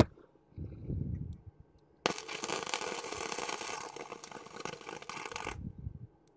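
Electric welder's arc crackling and hissing for about three and a half seconds, starting about two seconds in and cutting off suddenly: a single tack weld. A few low knocks of handling the workpiece come before it.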